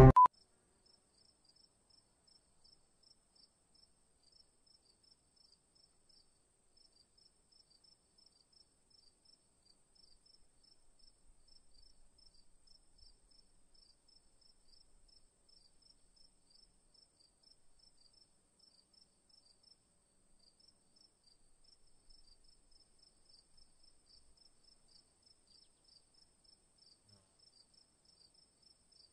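Very faint cricket chirping: short high chirps repeated in quick, even groups, over a faint steady high-pitched whine. Music cuts off right at the start.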